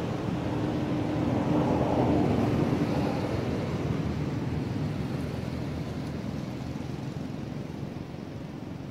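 A motor vehicle passing by: a steady engine-and-road noise that swells to its loudest about two seconds in, then slowly fades away.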